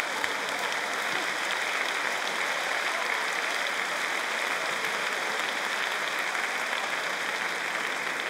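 Live audience applauding steadily after a stand-up comedy punchline.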